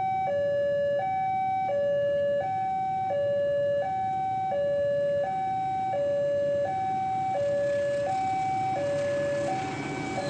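Railway level-crossing warning alarm sounding a steady two-tone ding-dong, switching between a higher and a lower tone about every three-quarters of a second, warning of an approaching train.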